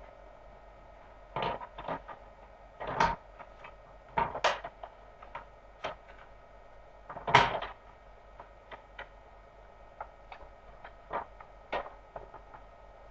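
Scattered, irregular clicks and knocks, the loudest about seven seconds in, over a faint steady hum.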